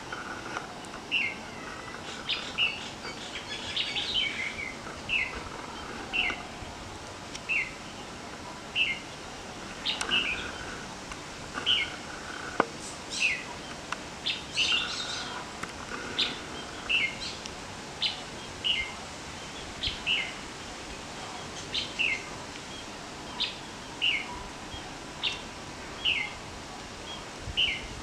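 A bird calling over and over, a short chirp that falls in pitch, repeated about once a second, with other bird chirps now and then.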